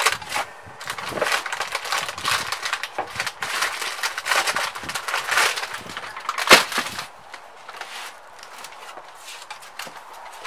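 Rustling, rubbing and scraping as hands and a cloth work over a small air compressor, with one sharp knock about six and a half seconds in; the handling gets quieter after about seven seconds.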